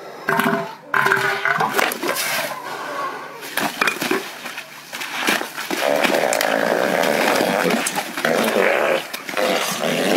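Bull elephant seals bellowing at each other in a territorial fight over mates: short pulsed calls at first, then from about six seconds in a longer, rough, steadier bellowing as the two bulls clash.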